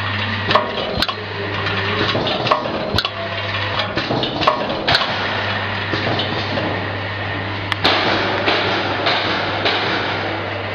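Automatic screw counting and packing machine running: a steady low hum from its vibrating feeder plates, with sharp metallic clicks that come in pairs about half a second apart, repeating every two seconds or so.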